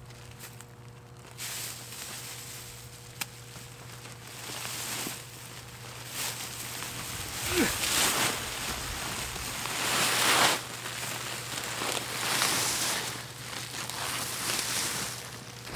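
Black plastic mulch film being pulled up out of a soil bed, rustling and crinkling, louder in spells about eight and ten seconds in.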